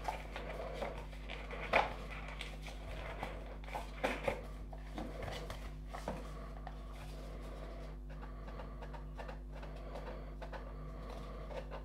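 Quiet handling of cardboard trading-card packaging: a few soft scrapes and taps as a box is slid from its printed sleeve and a small lidded card box is picked up and turned in the hands. A steady low hum runs underneath.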